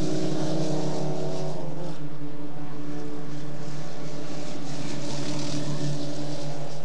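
Formula Ford 1600 race cars' engines running at racing speed as a group of cars drives through a corner. It is a fairly steady engine note, with a shift in pitch about two seconds in.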